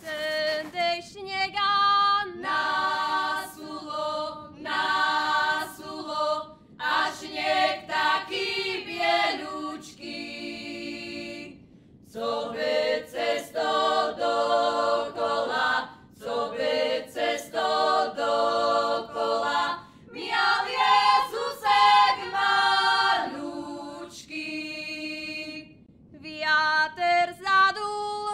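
A group of girls and young women singing a Goral Christmas carol a cappella in several voice parts, phrase after phrase with short breaks between them.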